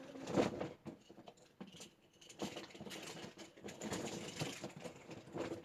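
Rummaging through a pile of fidget toys: irregular rustling and light clattering, loudest about half a second in.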